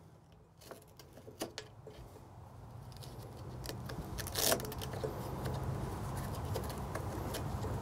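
Velcro strap being wrapped and pressed around a folding table's metal legs: scattered small clicks and rustles, with one louder rasp about four and a half seconds in. A low rumble grows louder from about three seconds in.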